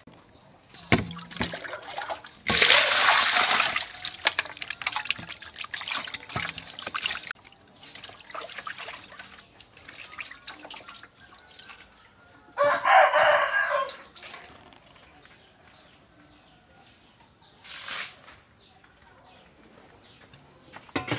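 Water splashing and sloshing in a large aluminium basin as fish roe is washed by hand, loudest in the first few seconds. A rooster crows once, about halfway through.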